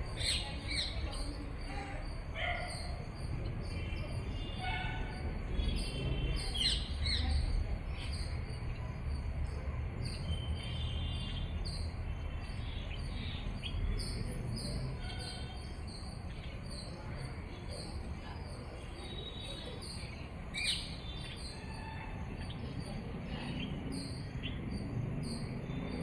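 Green parrots calling in a tree: many short shrill chirps with a few harsh screeches scattered through.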